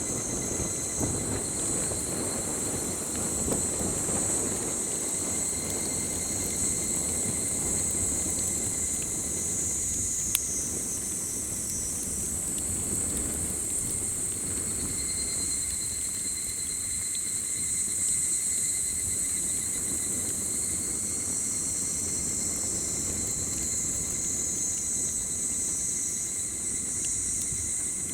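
A chorus of evening insects: a dense, steady high-pitched buzzing with a thinner steady trill held underneath it. Below that, a campfire crackles, with one sharp pop about ten seconds in.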